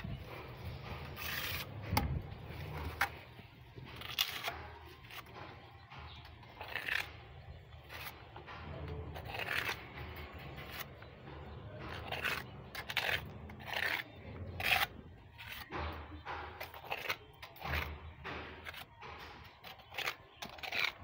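A painter's scraper blade spreading thick textured paint over a wall in irregular, uneven scraping strokes.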